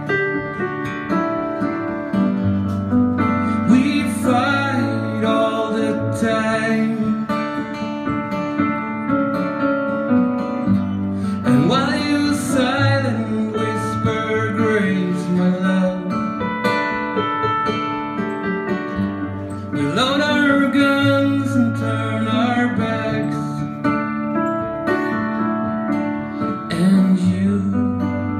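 Acoustic guitar strummed with a Nord Stage keyboard playing piano chords and a bass line, an instrumental passage of a singer-songwriter ballad, with a voice singing over it at times.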